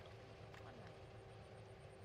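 Near silence: a steady low background hum, with a few faint soft clicks.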